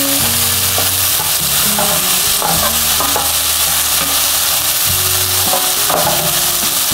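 Chopped onion frying in hot oil in a pan with cashews, ginger and garlic, sizzling steadily as it is stirred, with a few short scrapes of the spoon against the pan.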